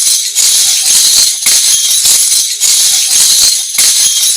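Lezim being shaken in an even rhythm: its metal jingles clash and shimmer in a bright, rattling swell about once a second. The lezim is the Maharashtrian folk instrument made of a wooden handle with small metal cymbal-jingles on a chain.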